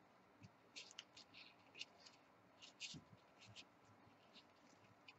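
Faint, scattered rustles and soft ticks of floral tape being stretched and wrapped around a wire flower stem by hand.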